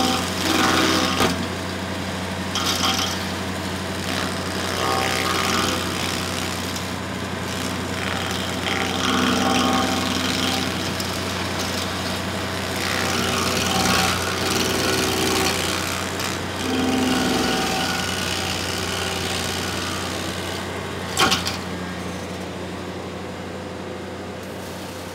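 Ventrac tractor's stump grinder attachment grinding down a stump at ground level, its cutter wheel biting in with grinding that rises and falls over the steady hum of the tractor's engine. A sharp knock comes about 21 seconds in, and the grinding eases off near the end.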